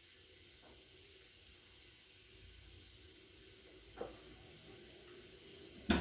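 Cooked rice being scraped out of an aluminium pot into a glass baking dish with a silicone spatula, over a faint steady hiss. There are two knocks of pot or utensil, a soft one about four seconds in and a louder, sharper one near the end.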